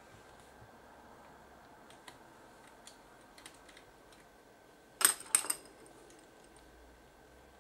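Small ticks and clicks of a precision screwdriver and tweezers working the tiny case screws of a Sony DSC-H10 compact camera, with a quick cluster of louder sharp clicks about five seconds in.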